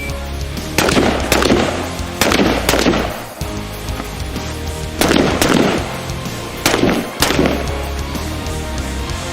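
Shots from an HK 416D 5.56 mm carbine, fired in quick pairs about half a second apart, each ringing out after the crack, about four pairs in all. Background music with a steady bass runs underneath.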